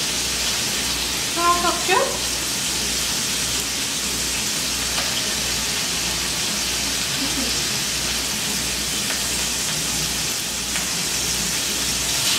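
Fish fillets pan-frying in oil, a steady sizzle, with a few light clicks of metal tongs in the pan as pieces are turned and lifted. A brief pitched sound about a second and a half in.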